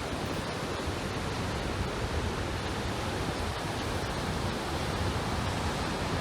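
Steady, even rush of turbulent water.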